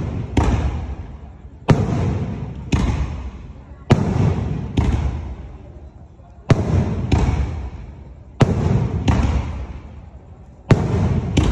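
A rapid barrage of aerial salute shells fired from mortars, about eleven sharp booms coming every one to two seconds, each trailing off in a long rolling echo.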